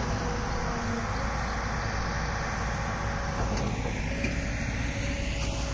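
Heavy diesel engine running steadily at idle, a low even rumble with no revving.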